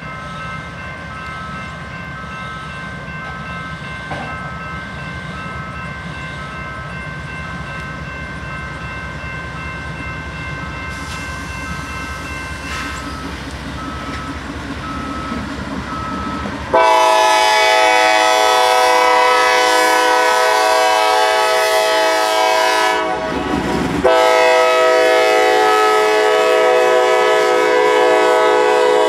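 Norfolk Southern GE diesel locomotives approaching with a low engine rumble and fainter steady high tones. About 17 seconds in, the lead locomotive's horn blows loud and close as it passes, in two long blasts with a brief break between them.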